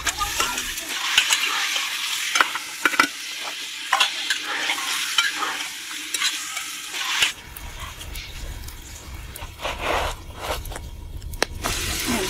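Food sizzling as it fries in a metal cooking pot, with a metal ladle scraping and clinking against the pot as it is stirred. About seven seconds in the sizzle drops and a low rumble comes in, with a few more sharp clinks.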